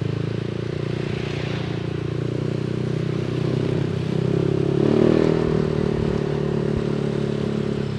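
Yamaha NMAX 155 scooter's engine running while riding in traffic. It swells and rises in pitch about halfway through as it speeds up, then holds steady.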